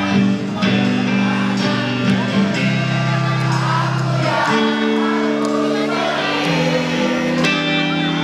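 Music with singing over long held chords; the chord changes about halfway through and again near the end.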